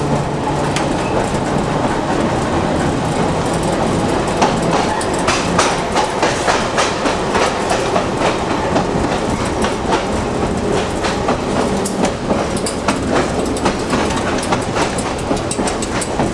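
Peter Witt streetcar running along the track, heard from the operator's cab: a steady rolling rumble, with wheels clicking over rail joints from about four seconds in.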